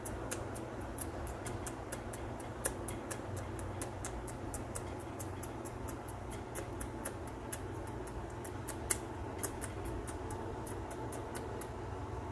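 Fast, irregular light ticking, about four or five small clicks a second with a few sharper ones, over a steady low hum.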